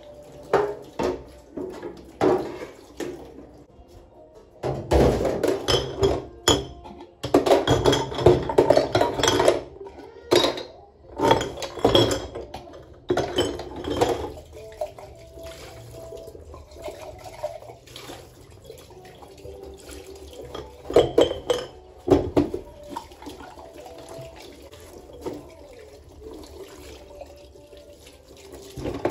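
Tap water running into a stainless steel sink while empty glass spice jars and their metal lids are rinsed, with irregular bursts of glass and metal clinking and clattering against the sink, busiest in the first half and again about two-thirds through.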